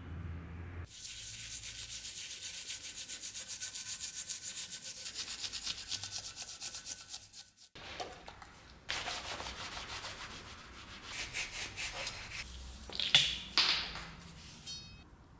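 Cloth rag rubbing oil over a polished steel axe blade in fast back-and-forth strokes, a steady scratchy hiss that stops briefly about halfway and resumes less evenly. Near the end two sharper knocks stand out as the loudest sounds.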